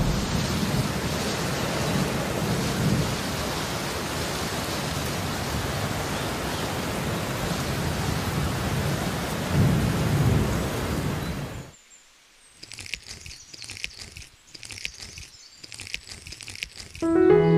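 Steady heavy rain with a low rumble of thunder swelling about ten seconds in. The rain cuts off abruptly at about twelve seconds, leaving faint scattered high chirps, and piano music starts near the end.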